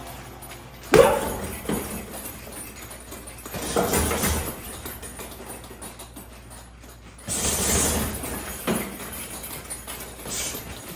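Boxing gloves striking a hanging heavy bag, in short irregular bursts of one to a few punches every second or two, with pauses between combinations.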